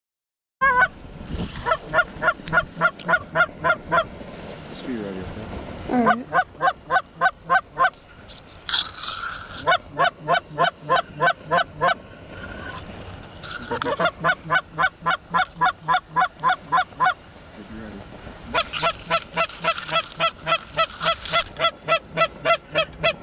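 Goose call blown in long strings of rapid, evenly spaced honks and clucks, about four a second, with short pauses between the strings, to bring in geese.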